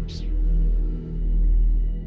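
Ambient background music: a low sustained drone that swells and dips about once a second, with a brief hiss at the very start.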